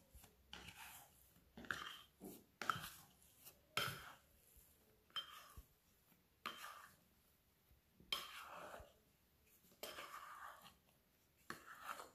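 Plastic bowl scraper working risen bread dough out of a glass mixing bowl: about ten short, quiet scrapes and light knocks against the glass, irregularly spaced.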